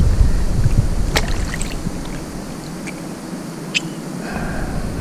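Shallow river water sloshing lightly as a hand holds a small freshly caught fish in it to release it, with a low rumble over the first two seconds and a couple of sharp clicks.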